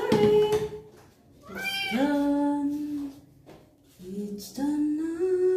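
Young kitten meowing three times: a long meow about one and a half seconds in, then a short one, then another long meow that rises in pitch near the end.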